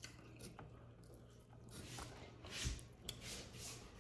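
A person chewing food with soft wet mouth sounds, close to the microphone. There are a few faint clicks and a couple of louder swells from about two and a half seconds in.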